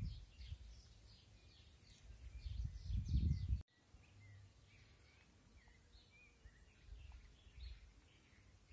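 Small birds chirping and twittering in many quick short notes, busiest in the first three seconds and sparser later. A low rumble on the microphone comes in about two seconds in and stops suddenly at three and a half.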